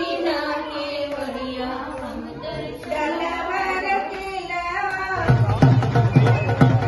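Background music: a voice sings a slow, drawn-out melody, and about five seconds in a steady drum beat comes in under it.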